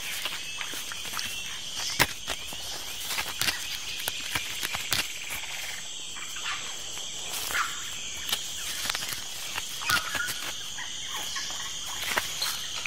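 Agouti gnawing a hard Brazil nut pod: irregular sharp clicks and scrapes of incisors on the woody shell, the sharpest about two seconds in. Underneath is a steady high drone of a rainforest insect chorus.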